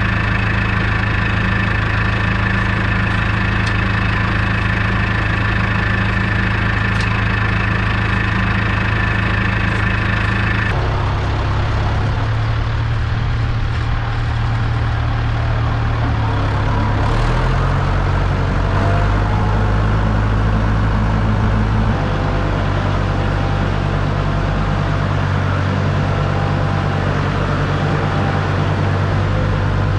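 Farmall 560 diesel tractor's six-cylinder engine running steadily. Its speed or load changes abruptly about a third of the way in, and twice more later.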